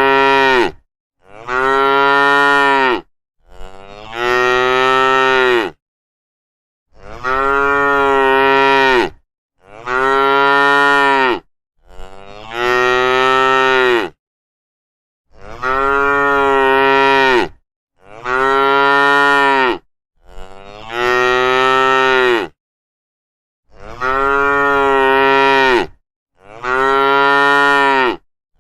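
Cows mooing: about ten long, loud moos of roughly two seconds each, coming in groups of two or three with dead-silent gaps between them.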